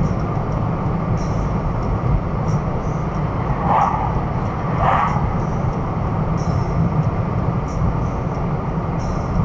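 Steady road and engine noise inside a car's cabin while driving at about 35 mph, heavy at the low end. Two brief louder sounds come about four and five seconds in, around the time an oncoming car passes.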